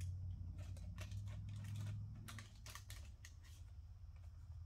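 Paper template being handled and rubbed along the edge of a console to mark a cutting line: irregular light rustles, scratches and clicks, over a steady low hum.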